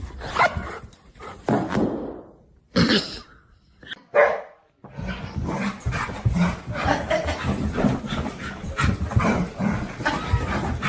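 A dog barking: a few separate loud barks in the first four seconds or so, then a busier, continuous stretch of dog sounds from about five seconds in.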